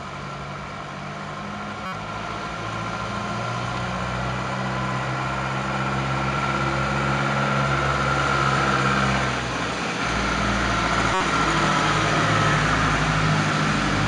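A minibus engine running as it drives along the wet street below, getting louder as it comes closer, over a steady hiss of rain and tyres on the wet road.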